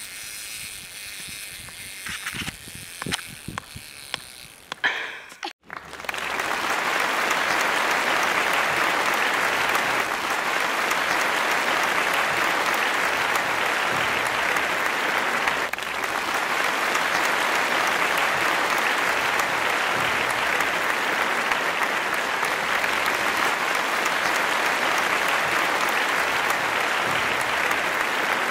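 A few soft knocks, then a large crowd applauding steadily, starting suddenly about six seconds in and cutting off abruptly at the end.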